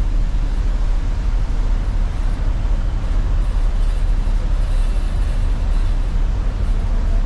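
Steady, loud low rumble with wind buffeting the microphone, no distinct tones or events.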